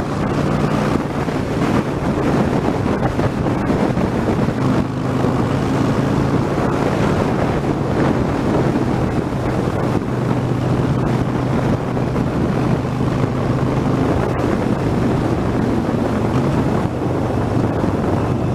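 2013 Harley-Davidson Sportster 72's air-cooled 1200 cc V-twin engine running steadily while riding, with wind rushing over the helmet microphone.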